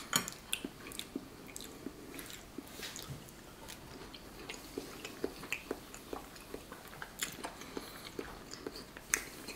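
A person chewing soft food close to the microphone: a steady run of small wet mouth clicks and smacks.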